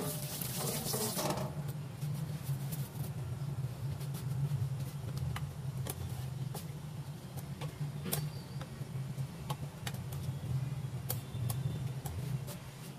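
A steady low hum, with a brief hiss in the first second or so, and scattered light clicks of a metal spoon knocking against a stainless steel pot as chicken pieces are stirred.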